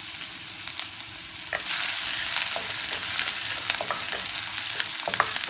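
Chopped onions sizzling in hot oil in a stainless steel kadai, stirred with a wooden spatula that clicks and scrapes against the pan. The sizzle grows louder about two seconds in.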